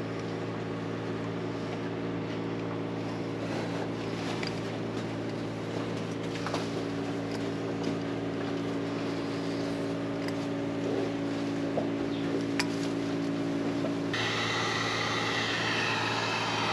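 A steady mechanical hum made of several pitched tones, with a few faint clicks. About fourteen seconds in, a loud hiss starts suddenly and carries on over it.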